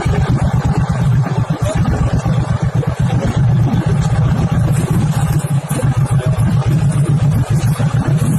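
An off-road vehicle's engine running loudly at fairly steady revs, with a rapid pulsing drone.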